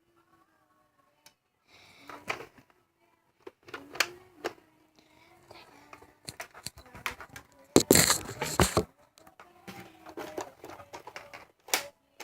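Rustling with scattered knocks and clicks, and a louder rushing scrape lasting about a second, about eight seconds in.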